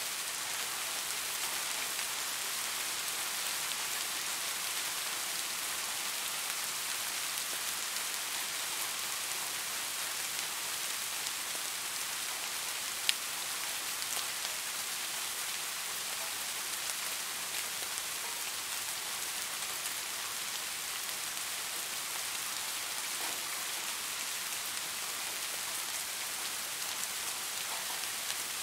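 Steady rain falling, an even hiss throughout, with one sharp tick about halfway through.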